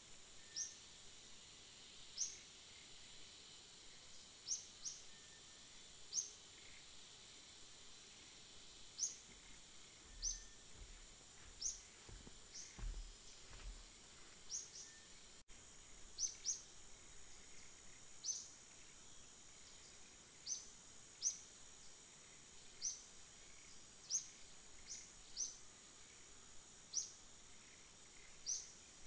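Faint bird calls: short rising chirps repeated about once a second or two, over a steady thin high-pitched drone like insects.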